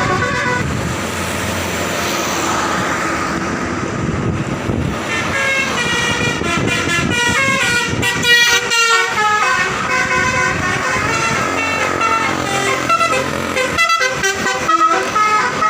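Bus engine and road noise, then about five seconds in a bus telolet horn, the multi-tone musical air horn of Indonesian buses, starts playing a fast tune of stepped notes that change pitch several times a second, with short breaks.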